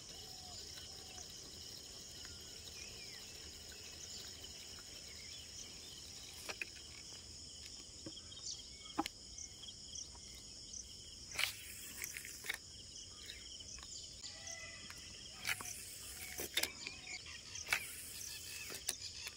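Steady, high-pitched insect chorus of crickets, with a few short bird chirps. From about six seconds in come scattered brief clicks and short rustling bursts.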